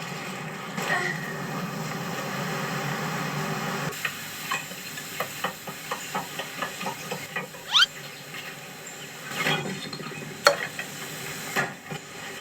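Food sizzling with a steady hiss for the first few seconds, then a run of light clicks and taps like utensils on dishes, with a brief rising squeak partway through.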